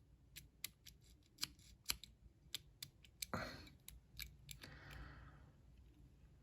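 Faint, irregular small clicks and scrapes of a lock pick and tension wrench being worked inside a lock.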